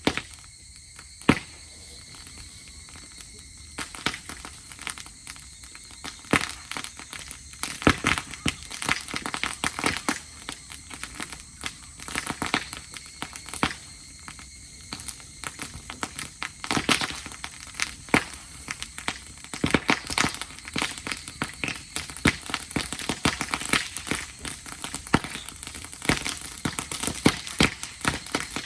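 Dry grass burning in a campfire, crackling with a dense, irregular run of sharp pops and snaps.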